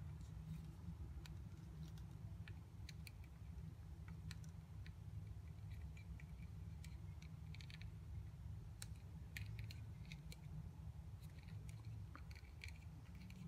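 Faint, scattered light clicks and scrapes of a plastic balloon stick being pushed into the slot of a 3D-printed plastic float valve, over a steady low hum.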